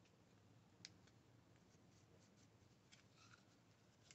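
Near silence, with a few faint clicks and a light rub from small parts being handled on a workbench.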